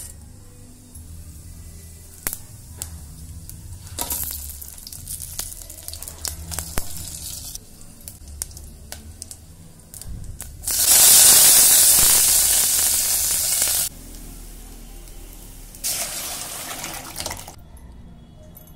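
Hot oil in a steel pan sizzling as spices are tempered, with scattered pops and crackles from the frying seeds. About eleven seconds in, fresh leaves are dropped into the oil and a loud hissing sizzle lasts about three seconds; a shorter sizzle follows near the end.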